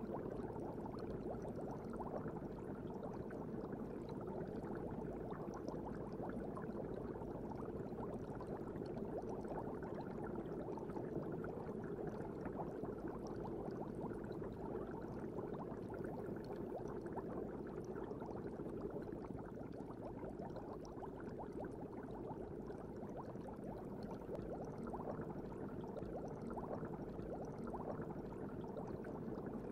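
Steady, muffled bubbling and gurgling of an aquarium as heard from inside the tank: a dense crackle of small bubbles over a low, even hiss from the aerator and filter.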